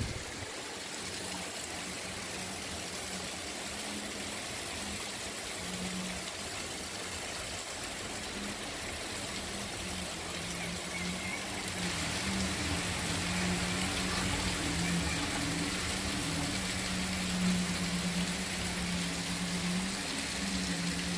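Heavy rain pouring down on a cobbled street, a steady hiss of falling water. A low hum comes and goes through the second half.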